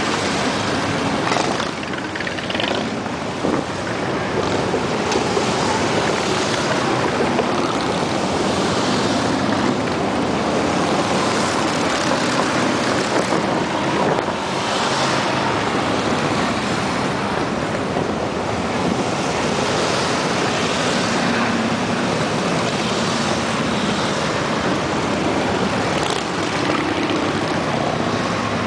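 Harley-Davidson motorcycles riding past in a steady stream, their engines running under a dense rushing noise, with faint engine tones rising and falling as bikes go by.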